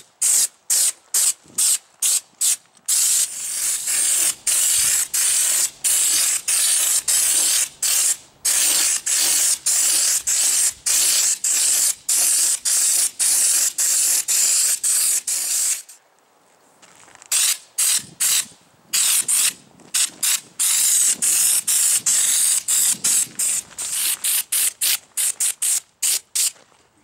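Air-powered schutz-type spray gun spraying U-POL Raptor bedliner, a hiss of compressed air and coating switched on and off by the trigger in quick short bursts. Through the middle it runs in longer strokes, then stops briefly about two-thirds through before the short bursts resume.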